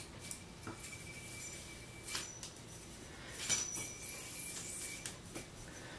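A YoYoFactory Shutter metal yo-yo spinning on its bearing with a faint, steady high whine. It is broken by a few light metallic clicks, the sharpest at about two seconds and three and a half seconds in.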